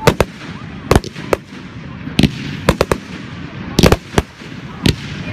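Fireworks display: aerial shells bursting with about a dozen sharp bangs at irregular intervals, over a steady hiss.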